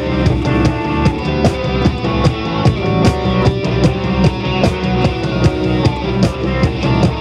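A rock band playing an instrumental passage, with electric guitar over a steady drum kit beat.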